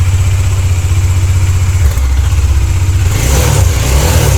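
Bajaj Dominar 400's single-cylinder engine running just after a tune-up with a new spark plug, air filter and fuel filter and a cleaned throttle body, idling steadily and then revved up about three seconds in.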